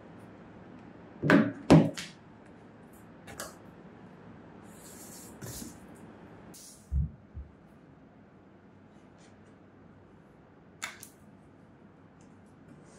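Unboxing handling noise from a projector, its power adapter and cardboard box. There are loud knocks and clatter a little over a second in, then rustling and sliding as the projector is lifted out of the box, and a dull low thump about seven seconds in as it is set down on the table.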